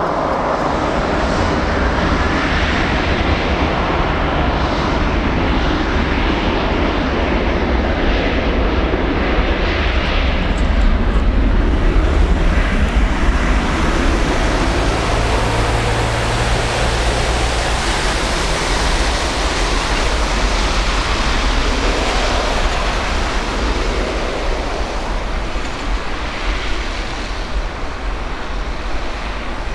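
Embraer 195's twin GE CF34-10E turbofans spooling up to takeoff thrust as the jet accelerates down the runway on its takeoff roll. A loud, steady jet roar with a deep rumble, easing a little near the end as the aircraft moves away.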